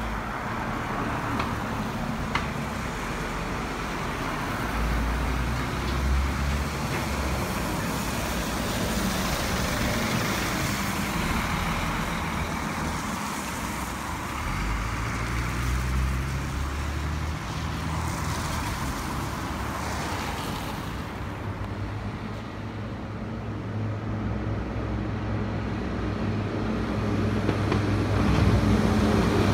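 Road traffic passing on a wet road: cars, a coach, and near the end a New Holland tractor's diesel engine approaching and growing louder.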